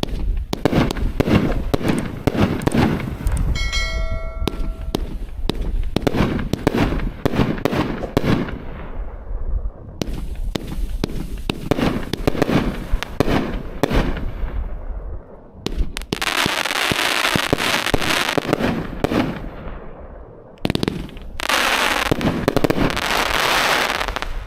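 A 25-shot, 500-gram consumer fireworks cake (Outlaw Fireworks' Jive Turkey, about 1.2-inch tubes) firing: a rapid run of launch thumps and bursting breaks, then two long spells of dense, hissing crackle in the second half.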